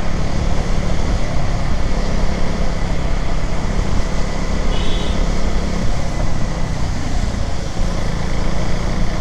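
Riding noise from a KTM Duke 390 on the road: the single-cylinder engine running steadily under wind rush on the camera microphone, amid traffic. A brief high beep about five seconds in.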